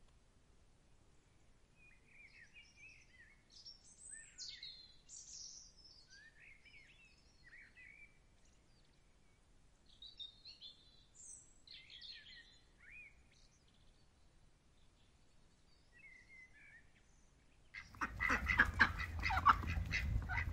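Small birds chirping and singing faintly off and on. About three seconds before the end, domestic ducks start quacking loudly.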